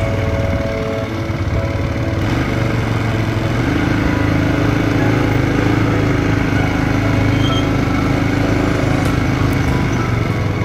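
Off-road buggy engine running steadily.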